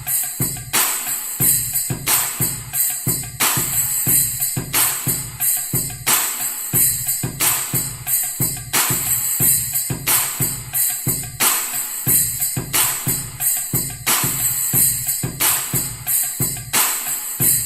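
Music with a steady, driving beat of deep bass thumps and bright tambourine-like percussion, played back through a Canton Plus S two-way mini loudspeaker (110 mm bass driver, 25 mm dome tweeter) for a treble and bass test.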